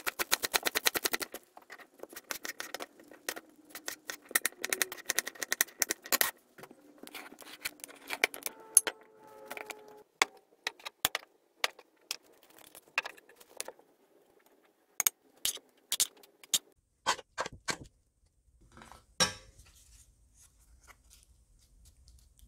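Knife chopping lettuce on a wooden cutting board: a fast run of cuts at the start, then slower cuts for a few seconds. After that come scattered taps and clicks of ingredients and dishes being handled, with one louder knock near the end.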